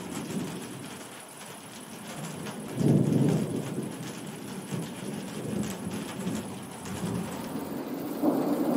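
Thunder rumbling over steady rain, with a louder burst of thunder about three seconds in and another swell near the end. Raindrops patter throughout.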